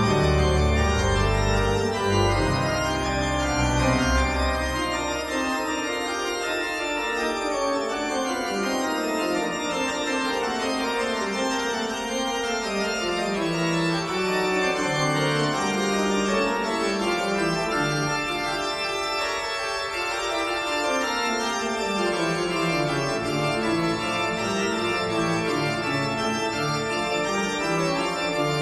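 Background music on organ, with sustained chords; the deep bass notes drop out about five seconds in.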